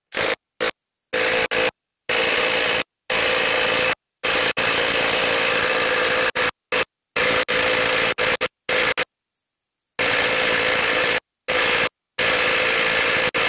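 DeWalt DCF894 20V XR brushless mid-range impact wrench hammering a socket on a bolt in a wooden beam, run in a dozen or so trigger pulls of different lengths that each start and stop abruptly.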